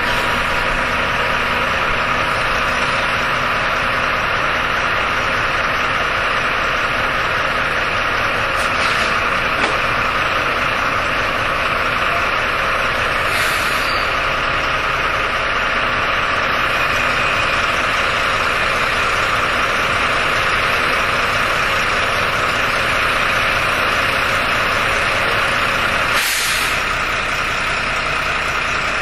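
Jelcz M121M city bus's diesel engine running steadily, heard from inside the bus during a ride. Three short hisses of air, typical of air brakes, break through the drone, the loudest near the end.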